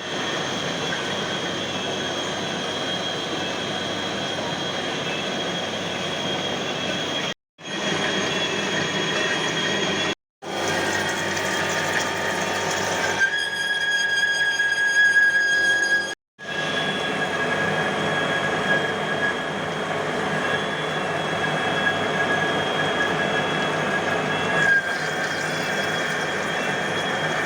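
CNC lathe machining a metal flange, running steadily with a high-pitched metallic whine from the cutting. The whine sharpens and grows louder for a few seconds in the middle. The sound drops out briefly three times.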